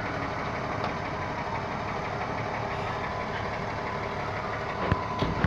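Steady mechanical hum, like an engine idling, with two or three sharp clicks near the end.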